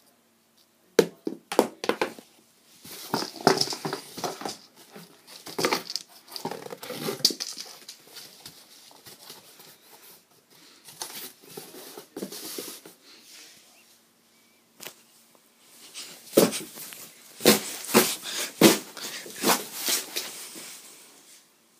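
Packaging of a Nescafe coffee pack being handled and opened: irregular crinkling and crackling, heaviest in two spells, about a second in and again from about sixteen seconds.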